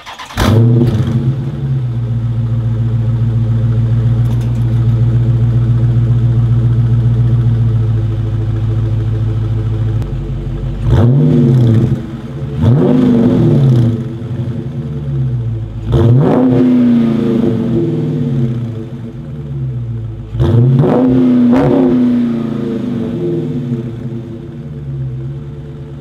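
Dodge Charger Scat Pack's 6.4-litre Hemi V8 on its factory exhaust, starting with a loud burst and holding a fast idle for about ten seconds before dropping to a lower idle. It is then blipped about five times in short revs, each rising and falling back, before settling to idle again.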